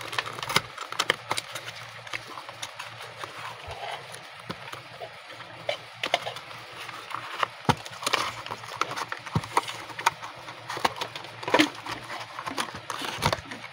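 A small cardboard product box being opened by hand: irregular clicks, taps and scraping as the flaps are pulled open and the inner packaging slides out.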